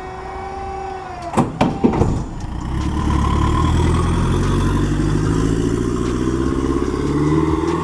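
Fiat box van's engine pulling away and accelerating, rising in pitch. Before that, a steady whine winds down about a second in, followed by a couple of knocks.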